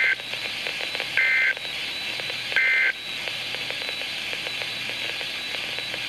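NOAA Weather Radio receiver sending the EAS end-of-message data tones: three short, harsh two-tone bursts about a second and a half apart, marking the end of the alert. Steady radio hiss fills the gaps and continues after them.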